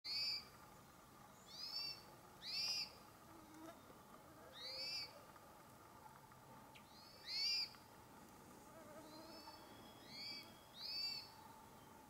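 A thrush calling: a short, high, arched note given over and over, about every one to two seconds.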